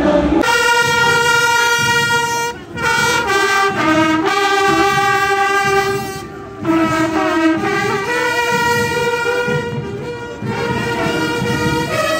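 Street brass band of trumpets and trombones playing a tune in long held notes, with short breaks about two and a half and six seconds in.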